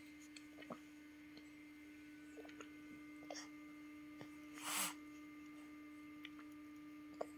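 Quiet room with a steady low electrical hum. A few faint soft clicks and one short breathy puff come a little before five seconds in.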